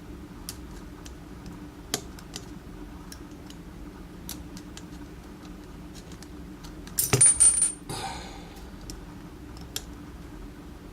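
Small metal lock parts clicking and tapping as a picked pin-tumbler cylinder is gutted with a gutting tool. About seven seconds in there is a louder burst of metallic scraping and clinking with a brief high ring.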